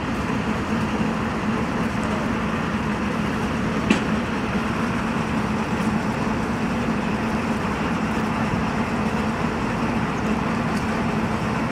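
Engines of a column of tracked armoured vehicles and a UAZ jeep idling together in a steady low drone, with one sharp click about four seconds in.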